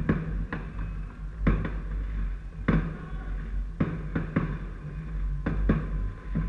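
Distant fireworks going off: about eight sharp bangs at uneven intervals, some in quick pairs, each with a short echo, over a steady low rumble.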